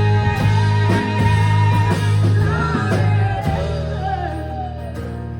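A live rock band playing the song's closing passage, with guitar over bass and drums. The volume eases off slightly near the end.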